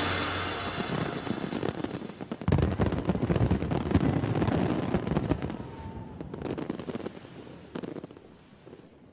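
Fireworks in their closing barrage: a dense run of rapid bangs and crackles that swells sharply about two and a half seconds in, then thins out and dies away toward the end.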